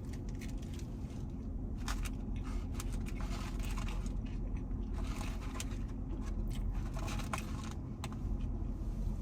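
Eating fast food: scattered light crinkles and clicks of wrapper paper and chewing over a steady low rumble.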